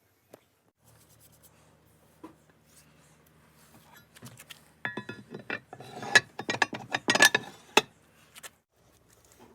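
Metal parts clicking and clinking in a quick run of sharp knocks with a short ringing, over a faint low hum.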